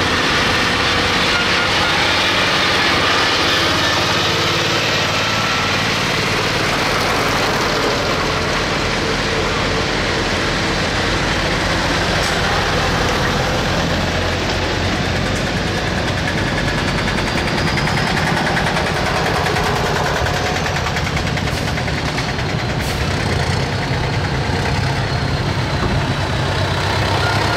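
Engines of several old tractors running as they drive slowly past one after another, a steady engine drone.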